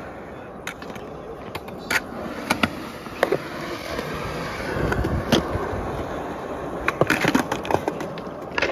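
Skateboard rolling on concrete, the wheels making a steady rolling noise that swells in the middle. Sharp clacks of the board striking the ground are scattered through, with several in quick succession a little before the end.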